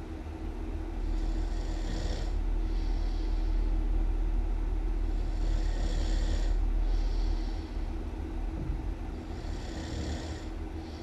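A person snoring really loud, in a slow breathing rhythm: about every four seconds a long hissing breath followed by a shorter one, over a steady deep rumble.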